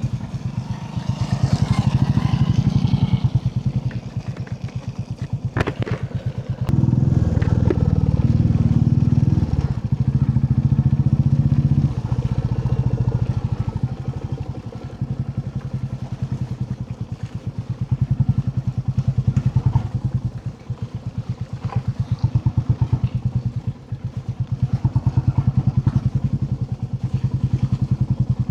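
Royal Enfield Classic 350's single-cylinder engine running under way, its firing pulses steady and low. It gets louder for a few seconds between about 7 and 12 seconds in, and there are a couple of sharp clicks just before that.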